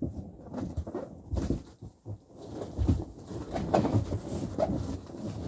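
Cardboard box rustling and scraping, with irregular knocks, as someone shifts around inside it and swings its cut-out cardboard door shut.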